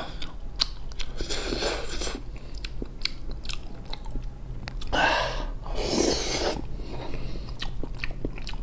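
Close-miked chewing of soft pig's brain, with many small wet mouth clicks. Two loud breathy bursts of air through the mouth, one about a second in and a longer one about five seconds in.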